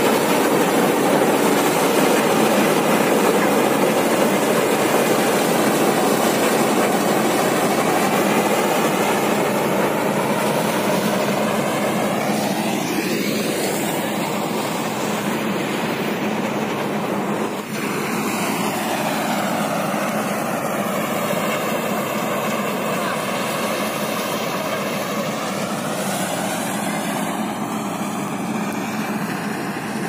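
Barnala combine harvester running steadily while harvesting paddy: a constant, even drone of engine and machinery, with a brief dip about 18 seconds in.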